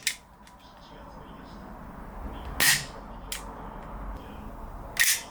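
GHK Umarex Glock 17 gas blowback airsoft pistol firing single shots: two sharp cracks about two and a half seconds apart, with a fainter click after the first.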